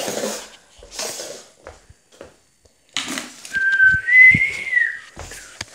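Rustling and knocking of things being handled, then a thin high whistle-like tone lasting about a second, stepping up in pitch partway through, with a knock underneath it.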